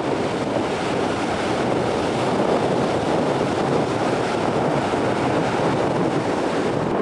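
Steady rushing of wind and small waves washing in the shallows of a breakwater-sheltered beach, with wind buffeting the microphone.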